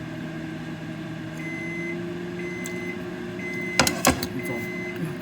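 Microwave oven running with a steady hum, then sounding four high beeps about a second apart, its signal that the heating cycle is done. About four seconds in, two sharp clicks, the loudest sounds, come between the beeps.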